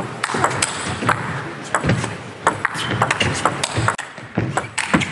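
Table tennis rally: a plastic ball clicking sharply off rubber-faced bats and the table in a quick, uneven rhythm of about two to three hits a second.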